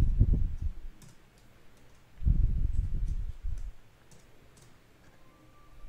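Typing on a computer keyboard: a short run of key strikes at the start and another about two seconds in, with a few sharp single clicks in between and after.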